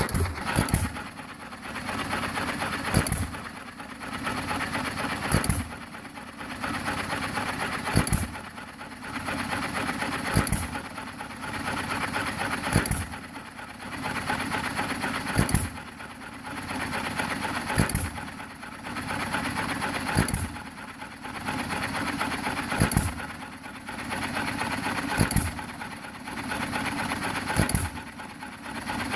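Freshly rebuilt John Deere 1 1/2 hp hit-and-miss engine running unloaded. It fires with a sharp bang about every two and a half seconds and coasts on its flywheels in between, the governor skipping the firing strokes until the speed drops.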